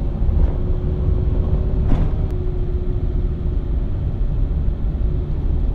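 Steady low rumble of a vehicle driving on a sealed road, heard from inside the cabin, with a faint steady hum over it. A single sharp click about two seconds in.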